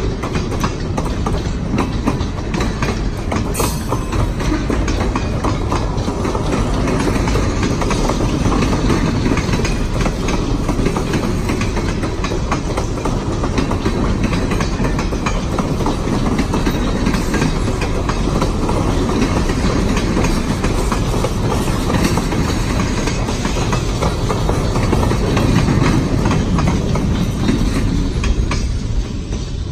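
Freight train's boxcars and covered hoppers rolling past: a steady rumble of steel wheels on rail with many sharp clicks over the joints, falling away near the end as the last car goes by.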